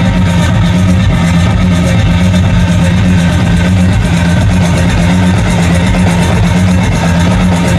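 Loud electronic dance music played over a club sound system, dominated by a deep, steady bass line.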